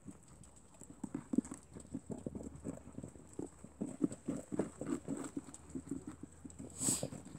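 German lop rabbit kits chewing carrot pieces close to the microphone: an irregular run of small, soft clicks and crunches, a few a second.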